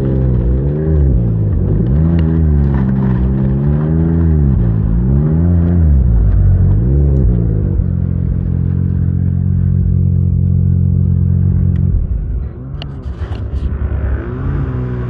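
Snowmobile engine running under throttle, its pitch rising and falling again and again, then holding steady for a few seconds. About twelve seconds in the throttle comes off and it drops to a lower, rougher idle with a few clicks, then starts to pick up again near the end.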